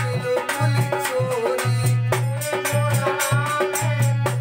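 Rasiya folk music played on harmonium and dholak: held harmonium notes over a driving dholak beat, with frequent sharp metallic strikes from a chimta.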